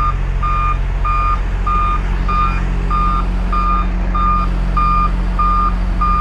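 John Deere 544K wheel loader's backup alarm beeping steadily, about three beeps every two seconds, as the loader backs up to pull on a chain. Its diesel engine runs underneath.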